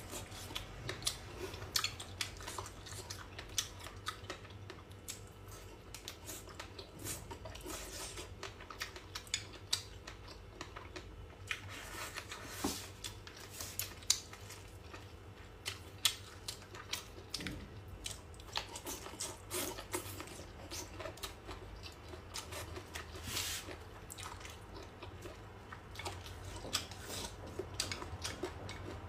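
Close-up chewing and biting of boneless chicken feet in chili sauce: many irregular short clicks and mouth sounds.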